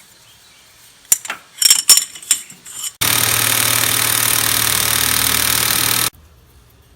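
Metal tools clinking a few times, then an impact wrench running steadily for about three seconds on the mower's hub assembly before cutting off suddenly.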